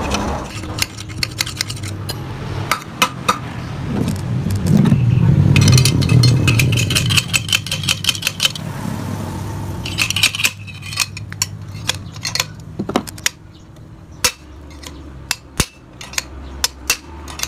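Metal parts of a motorcycle exhaust clinking, tapping and scraping under hand work, with a run of scraping in the middle. A low hum swells and fades about halfway through.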